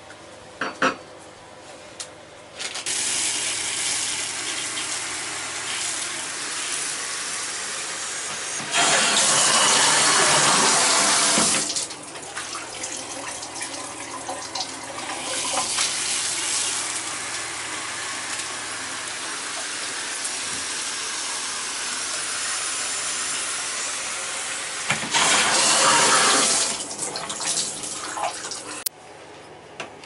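Water running hard through a Symmons tub/shower valve. It comes on about three seconds in, grows louder twice for a few seconds, and is shut off near the end. The shower head is running now that a brass diverter has replaced the failed plastic one.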